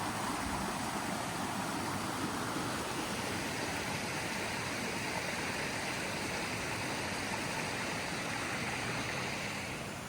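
A steady rushing hiss, brightening a few seconds in and dropping away near the end.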